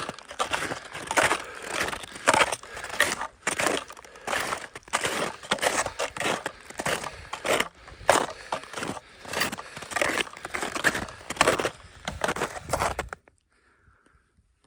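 Footsteps crunching in snow, a steady walking rhythm of about one step a second, cutting off abruptly near the end.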